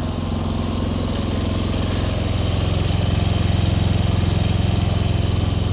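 Generator engine running steadily to supply power during a power outage, a low even drone that grows a little louder about three seconds in.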